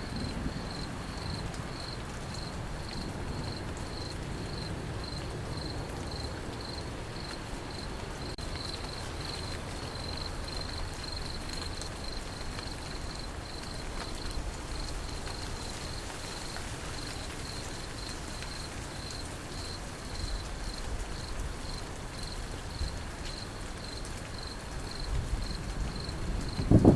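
Crickets chirping in a steady pulsing rhythm, about three chirps a second, over the even hiss of falling rain. A low rumble of distant thunder builds near the end.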